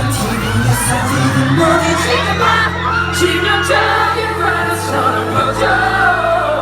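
Live pop music from a male K-pop group, with sung vocals over a steady, heavy bass line, and the audience cheering in the mix.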